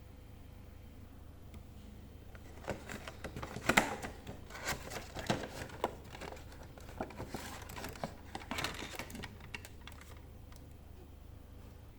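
Cardboard box and plastic packaging of a die-cast scale model being handled and opened: an irregular run of crinkles, rustles and small clicks starting about three seconds in and dying away after about ten seconds, with the sharpest click near the start.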